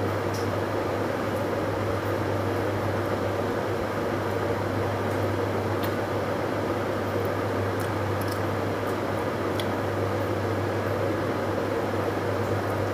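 Steady machine hum and hiss from a running appliance, with a few faint clicks.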